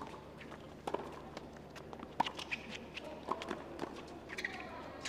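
Tennis rally on a hard court: sharp strikes of the ball off racquets about a second apart, the loudest about two seconds in, with players' footsteps and shoe squeaks between the shots.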